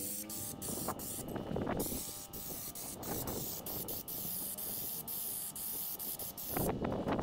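A compressed-air Raptor spray gun hissing as it sprays Raptor coating onto a panel, with a louder spurt near the end.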